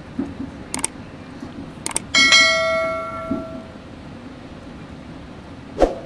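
A single bell-like ding that rings out and fades over about a second and a half, preceded by two sharp clicks, in the style of a subscribe-button sound effect. Another click comes near the end.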